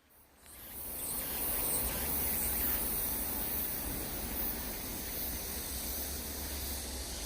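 Mountain stream water rushing over rock ledges: a steady hiss that fades in over the first second, with a low rumble underneath.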